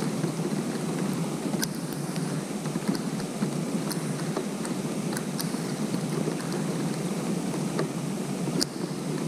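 Rain falling steadily on a pond's surface: an even, dense hiss with scattered sharp ticks of single drops striking close by.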